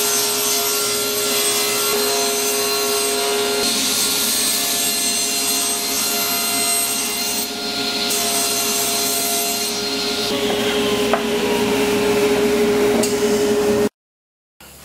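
Power saw running with a steady whine, its sound shifting as it cuts 3/4-inch plywood. It cuts off suddenly near the end.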